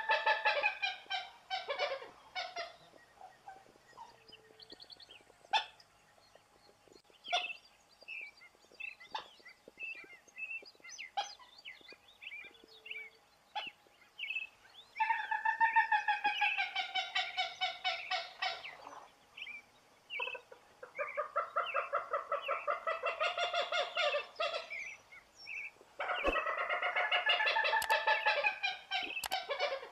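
Common gallinule calling: runs of rapid, harsh clucking notes in four bouts, one at the start and three close together in the second half, with scattered short calls between them.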